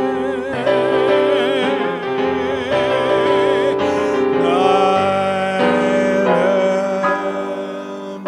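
Music with keyboard accompaniment: a long held note with wide vibrato for about the first half, then steady sustained chords.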